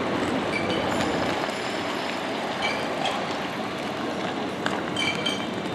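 Busy city-square ambience: a steady wash of traffic and pedestrian noise, with a few faint short high chirps and clicks.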